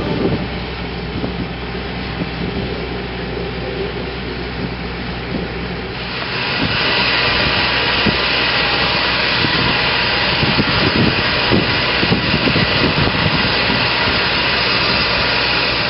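Portable flange-facing machine running as it machines the mating face of a warped steel tower flange flat: a steady mechanical whir with hiss, louder and brighter about six seconds in.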